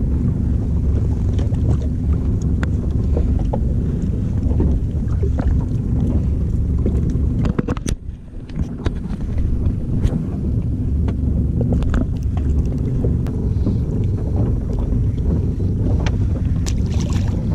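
Steady low wind rumble on a GoPro microphone aboard a small boat, with scattered light clicks and knocks from a spinning reel and from handling a small fish. The rumble drops briefly about eight seconds in.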